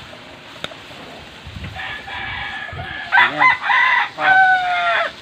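A rooster crowing: a fainter crow about two seconds in, then a loud crow near the end whose last note is held long and falls slightly.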